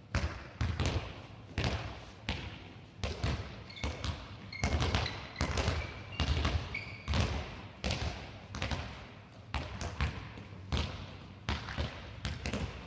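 Handballs being thrown, caught and bounced on a sports hall floor: a steady run of sharp slaps and thuds, one to two a second, each echoing in the hall, with a few short shoe squeaks.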